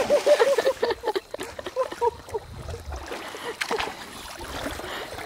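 Hooked chinook (king) salmon thrashing and splashing at the river surface, with sharp splashes about a second and a half in and again near four seconds. A rapid series of short pitched sounds runs through the first two and a half seconds.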